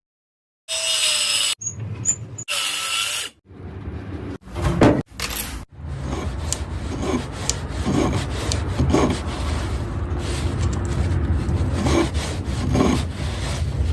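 Wood being worked by hand with a tool, making short scraping strokes about once a second over a steady noisy bed. The sound breaks off and restarts several times in the first few seconds.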